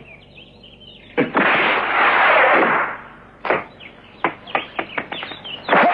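Cartoon sound effects of a football being kicked hard: a loud rushing whoosh about a second in, then a sharp crack, a quick run of clicks and knocks, and a loud hit near the end.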